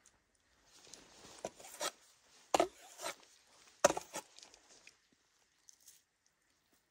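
Wood knocking and scraping: a string of sharp knocks with rubbing between them, the two loudest a little over a second apart, dying away about four and a half seconds in.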